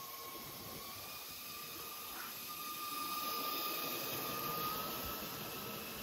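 Electric motors of a LEGO model locomotive running, a steady whine that rises slightly in pitch over a noisy rush of the running gear. It gets louder from about halfway in, as the train passes close by.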